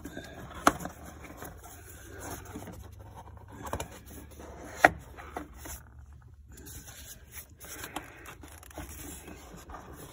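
Hands fumbling with parts in a car engine bay: scraping and rubbing, with two sharp clicks, one under a second in and a louder one about five seconds in.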